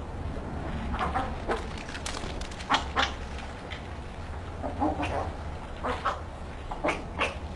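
Piglets giving short squeals and grunts, a string of brief separate calls scattered through, the loudest about three seconds in and again near the end.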